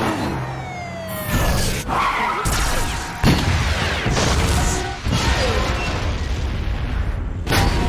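Layered vehicle crash and destruction sound effects: heavy smashes and booms land every second or two, with falling pitch sweeps between them over a constant low rumble.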